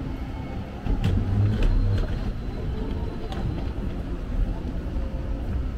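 Low rumble of city background noise, swelling from about one to two seconds in, with a few faint clicks.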